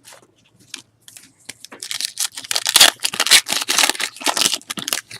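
A foil trading-card pack being torn open and its wrapper crinkled: a few light rustles at first, then about three seconds of dense, loud crackling.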